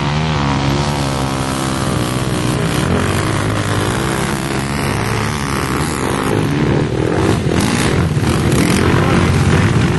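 Single-cylinder four-stroke sport quad bike engines revving, their pitch rising and falling with the throttle, a little louder in the second half.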